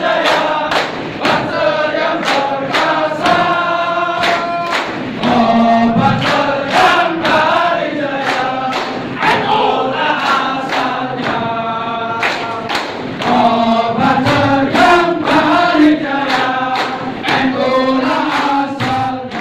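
A large group of men chanting and singing a yel-yel cheer in unison, loud and continuous, over a regular sharp beat about two to three times a second.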